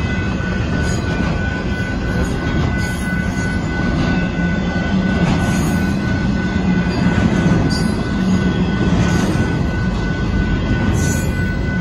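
Union Pacific intermodal freight train's cars rolling past a grade crossing: a loud, steady rumble of wheels on rail, with a thin steady high tone over it.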